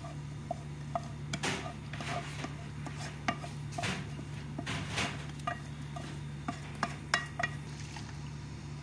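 A wooden spatula scraping thick sauce out of a metal pot and knocking against the metal, then stirring it through penne pasta: scattered clicks and scrapes over a steady low hum.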